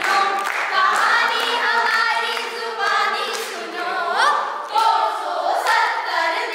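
A group of young voices singing together in unison without instruments, with a rising swoop in pitch about four seconds in.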